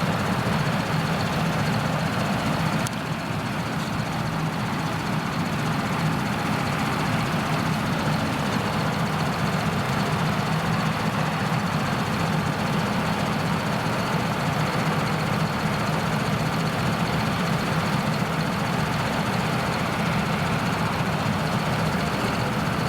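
Krone Big X 1100 forage harvester running under full load while chopping triticale: its large diesel engine's steady drone with a constant high whine from the chopping and blowing gear above it, the sound dipping briefly about three seconds in.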